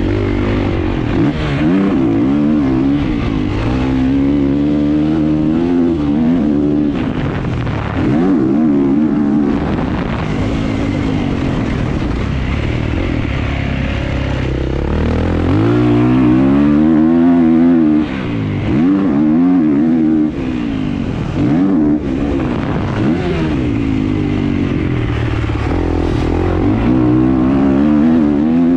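Kawasaki KX450 four-stroke single-cylinder motocross engine being ridden hard, its pitch climbing and falling again and again as the throttle is opened and shut through the track's turns and jumps.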